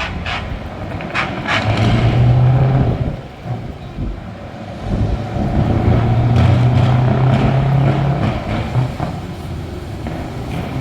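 Open-piped V8 truck engine revved hard twice: a short blast about two seconds in, then a longer one held for nearly three seconds from about halfway.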